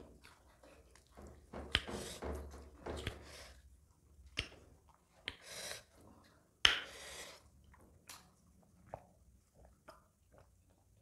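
Eating mouth sounds: chewing, lip smacks and slurps as fingers are licked clean after eating by hand, in scattered sharp smacks every second or two, the loudest about two-thirds of the way through.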